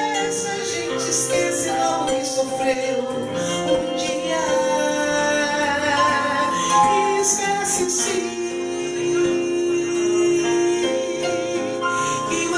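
Live music: a woman singing through a microphone, accompanied by acoustic guitar and electronic keyboard, holding long notes.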